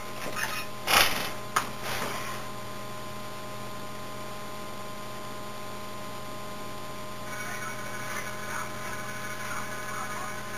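Steady electrical mains hum on an open studio vocal microphone, with a few short sounds in the first two seconds and some faint wavering high sounds from about seven seconds in.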